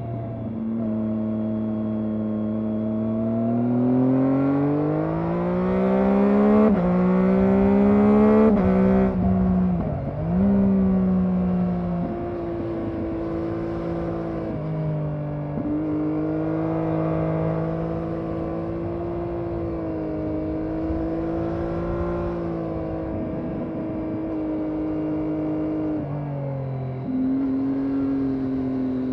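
Triumph Daytona 675R's inline three-cylinder engine, stock exhaust, accelerating hard with its pitch climbing and stepping down at upshifts about 7 and 8.5 seconds in. It dips sharply near 10 seconds, then runs at fairly steady revs with small shifts, dropping and picking up again near the end.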